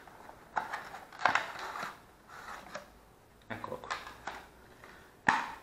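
A cardboard SSD box being handled as the clear plastic tray with the drive is pulled out of it: short bursts of scraping and crinkling, with a sharp plastic click near the end.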